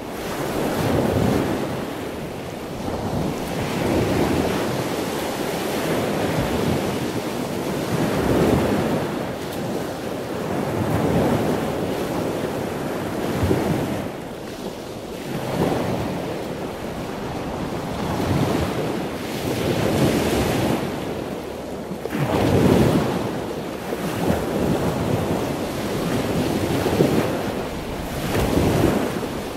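Heavy storm surf breaking and rushing on the shore, with strong wind buffeting the microphone; the roar swells and eases every few seconds.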